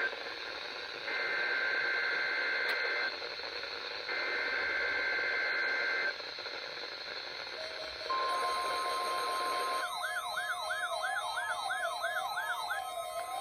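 NOAA Weather Radio weekly test: three bursts of screeching two-tone SAME data header, each about two seconds long with a one-second pause between. About 8 s in, the steady 1050 Hz warning alarm tone begins. About 10 s in it is joined by a weather radio receiver's warbling siren alarm as the receiver activates on the test.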